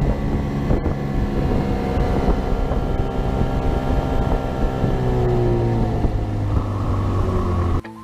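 Boat's outboard motor running under way, with wind buffeting the microphone. The engine note sags a little in the second half and cuts off abruptly near the end.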